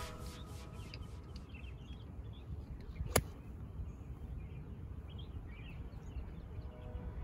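Outdoor ambience with small bird chirps over a steady low background noise, and one sharp click about three seconds in.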